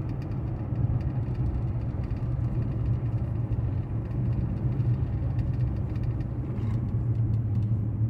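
Steady low rumble of a car's engine and tyres cruising along a highway, heard from inside the moving car.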